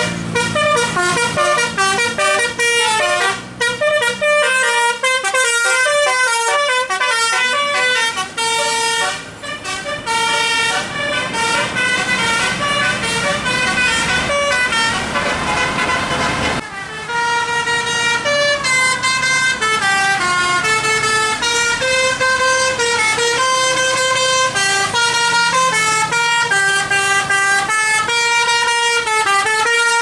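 Tourist buses' telolet horns, banks of musical air horns, playing fast jingles in several tones at once, with engine and road noise rising beneath them. Just past halfway the tune breaks off and another horn melody starts.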